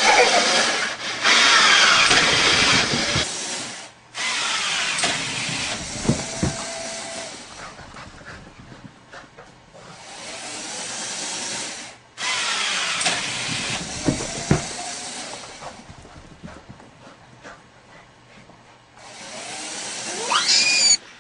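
Small electric motor of a homemade ball-tossing machine whirring in several spells of a few seconds each, some ending in a falling whine, with a few thumps between.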